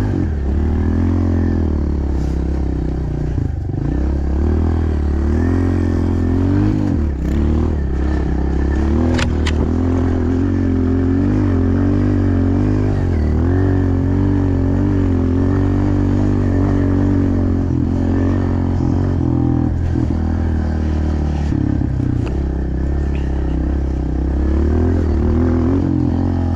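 Pit bike engine running while being ridden, its pitch rising and falling as the throttle is worked.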